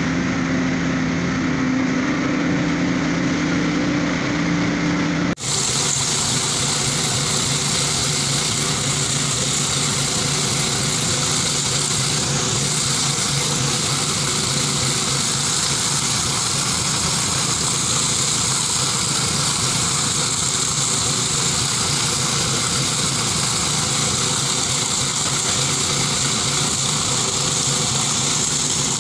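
Small petrol engine of a walk-behind power trowel ('concrete helicopter') running steadily as it finishes a fresh concrete slab. About five seconds in, the sound cuts abruptly from a steady hum with two held tones to a closer, fuller engine noise that continues evenly.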